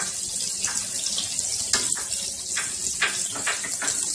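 Shallots, garlic and green chillies sizzling in hot ghee in an aluminium pot: a steady hiss with scattered pops and crackles.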